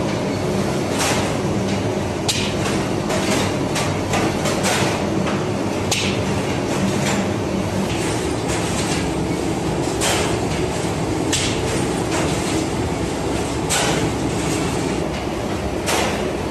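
Conveyor bread-oven machinery running with a steady rumble and hum. Sharp metallic clacks come irregularly, every one to four seconds.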